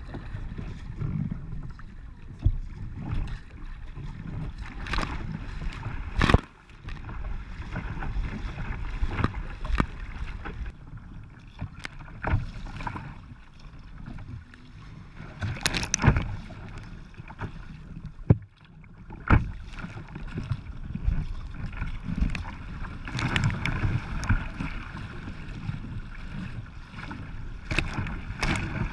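Water splashing and sloshing against a sea kayak's hull and paddle in choppy waves, with irregular sharp slaps of spray hitting close to the microphone. Twice the sound is muffled for a moment.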